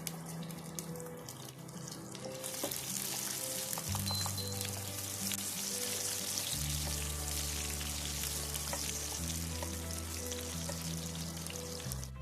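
Food sizzling as it fries in hot oil in a pan, a steady hiss that starts a couple of seconds in and cuts off near the end, over background music with a steady beat.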